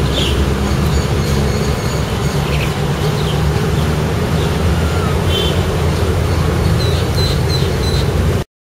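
Steady low rumble of motor traffic, with a few short, high chirps over it. It cuts off suddenly near the end.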